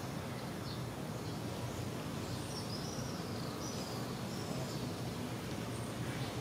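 Steady outdoor background noise, with a few faint, high bird chirps in the middle.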